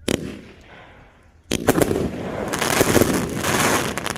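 Epic Force 27-shot 200-gram fireworks cake firing: one sharp bang right at the start, then from about a second and a half in, a dense, rapid run of bangs and crackle, typical of the cake's finale of rapid shots with gold crackling mums.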